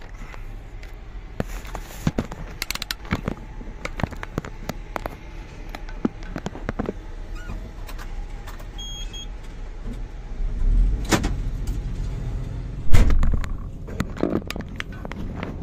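Large crawler excavator running, heard from inside its cab while the bucket digs into rocky rubble: a steady low engine hum under many sharp clicks and knocks of rock against steel. The low rumble grows louder about two-thirds of the way through, with one heavy thump soon after.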